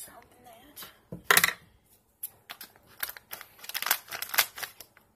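Hands handling things on a tabletop: a brief rustle about a second in, then a run of light clicks and taps.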